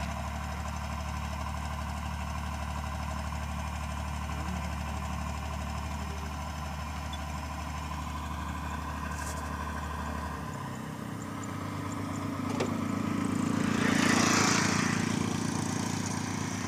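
Rice combine harvester's diesel engine running steadily out in the paddy field while the machine is stuck in the mud. The engine note shifts about ten seconds in, then swells louder a few seconds later and falls back.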